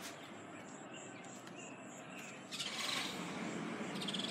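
Outdoor ambience with birds calling, short chirps at first, growing louder and busier about two and a half seconds in.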